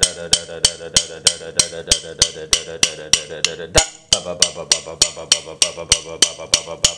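Wooden drumsticks playing an open stroke roll on a practice pad, with sharp accented strokes about three times a second over the rapid roll strokes. The roll breaks off briefly about four seconds in and starts again.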